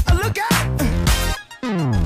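Background music with electronic sounds, dropping out briefly and then sliding down in pitch near the end.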